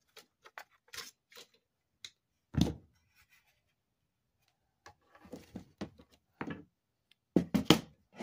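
Scattered clicks and knocks of hand tools and parts against a flat-screen TV's metal chassis during a teardown: cutting pliers snipping and tools being picked up and set down. There is a louder knock about two and a half seconds in and a cluster of sharp clicks near the end.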